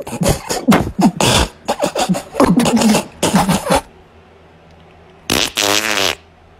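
A quick run of short, raspy, fart-like noises for about four seconds. After a pause, a brief wavering pitched sound comes near the end.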